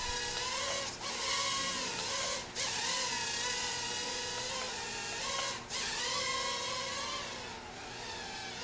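Mini quadcopter drone's small motors and propellers whining up close, the pitch wavering up and down with the throttle. The sound dips sharply for a moment three times.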